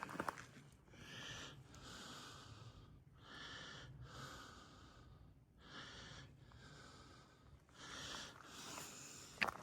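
A hiker breathing hard, with about a breath a second in and out through the mouth.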